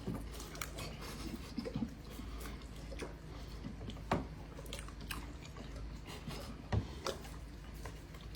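People eating: faint chewing and scattered small clicks of utensils against dishes, about one a second, over a low steady hum.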